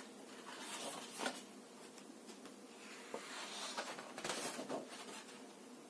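Soft rustling and handling of a large hardcover picture book's paper pages being turned: a short spell about a second in, then a longer one in the second half.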